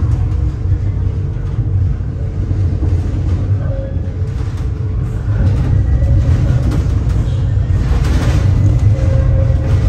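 Tram riding noise heard from inside the car: a steady low rumble of the wheels on the rails, with a faint whine coming and going.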